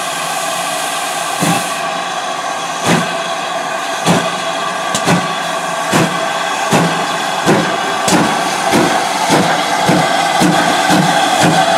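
GWR 2800 Class 2-8-0 steam locomotive 2857 pulling away with its train: exhaust beats from the chimney, slow at first and coming steadily faster as it gathers speed, over a steady hiss.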